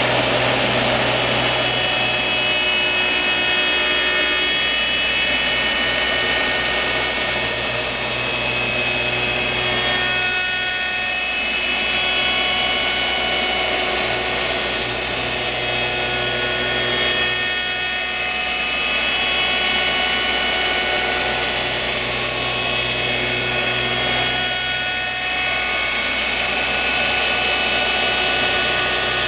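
Lih Woei LH-28-A automatic copy shaping machine's high-speed cutter spindle running and cutting a wooden workpiece on its rotating table: a steady whine with a low hum. The level rises and falls slightly every few seconds as the cut goes on.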